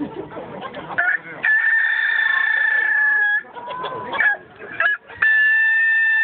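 Chaan rooster, an Okinawan native chicken breed, crowing: two long, level, held crows of about two seconds each, with shorter calls between them.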